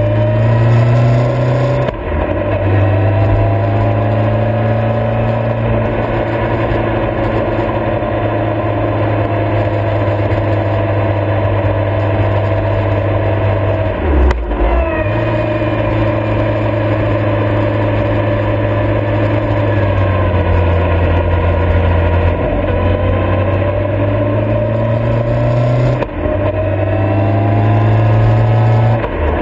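Motorcycle engine running under way, heard on board the moving bike over wind noise; its note rises and falls with the throttle and is broken briefly by gear changes about 2, 14 and 26 seconds in.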